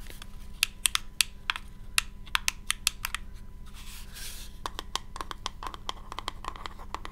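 Fingernails tapping on a small hard handheld object: irregular crisp clicks, several a second, pausing briefly a little past halfway and then coming faster.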